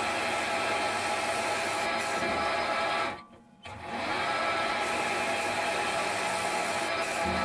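Metal lathe running and cutting a phosphor bronze bar, a steady machining sound. It drops out briefly about three seconds in, then carries on.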